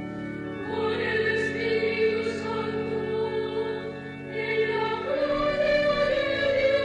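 Choral singing with orchestral accompaniment: a choir holding long, sustained notes that swell about a second in and again near the middle.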